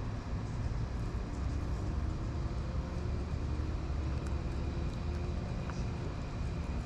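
Steady low rumble of road traffic passing close by.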